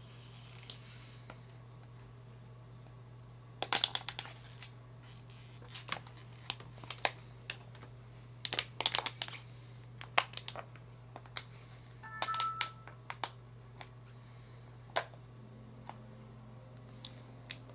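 Thin plastic water bottle crinkling and crackling in irregular clusters of sharp clicks as a toddler chews and bites on it. The densest bursts come about four seconds in, around nine seconds, and around twelve seconds.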